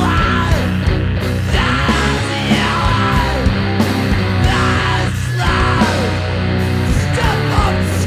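Hardcore punk recording: loud distorted electric guitar driving a full band, with shouted vocals coming in and out over it.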